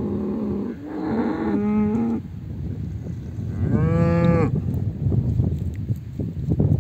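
Cattle mooing: long low calls in the first two seconds, and another call about four seconds in that rises and falls in pitch.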